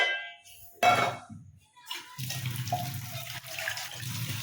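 Water running steadily from a kitchen tap, starting about two seconds in, after a brief clatter about a second in.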